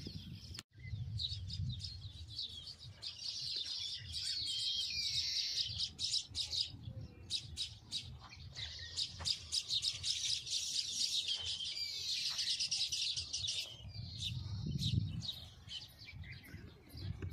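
A dense chorus of many small birds chirping and twittering without pause, with a low rumble underneath.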